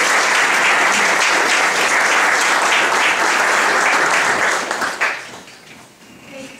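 Audience applauding in a steady, dense clatter of many hands, dying away about five seconds in.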